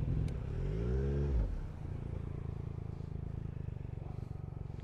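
Motorcycle engine given a brief rev that rises and falls, then settling about a second and a half in to a steady idle.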